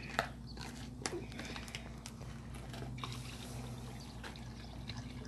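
A few sharp clicks in the first second or so, then chicken broth poured from a carton into a cast iron Dutch oven, a splashing, trickling sound from about three seconds in.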